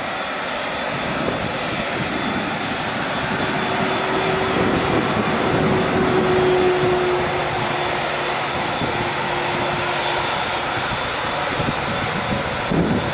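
Airbus A380's four Engine Alliance GP7200 turbofans running at low thrust as the airliner rolls slowly along the runway: a steady jet roar with a held whine. It grows louder toward the middle and eases off as the aircraft passes.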